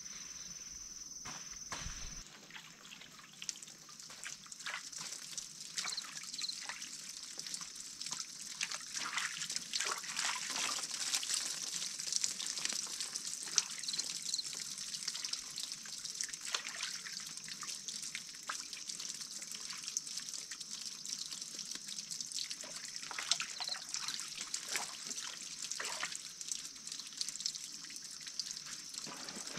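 Water from a garden hose trickling steadily into a plastic basin, with irregular splashes and drips as leafy greens are rinsed and lifted in it. For the first two seconds an insect's steady high trill is heard, cut off suddenly.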